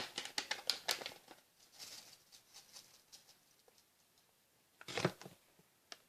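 Jello powder packet rustling as the dry powder is poured out into hot water: quick soft ticks and patter, dense at first, thinning out and fading over the first few seconds, with a short rustle again just before five seconds in.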